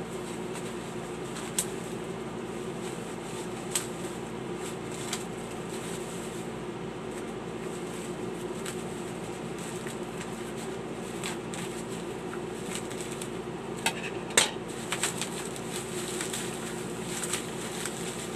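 Scissors snipping and crinkling through thick bubble wrap on a parcel, which is hard to cut open: scattered sharp snips and crackles, the loudest about three-quarters of the way through, over a steady low hum.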